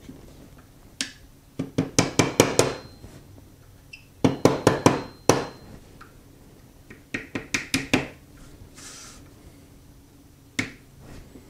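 Small hammer tapping a punch to drive the frame pins of a Glock 20 Gen4 pistol the rest of the way in. There is one tap about a second in, then three quick runs of about six sharp metallic taps each, and a last single tap near the end. A faint high ring follows some of the strikes.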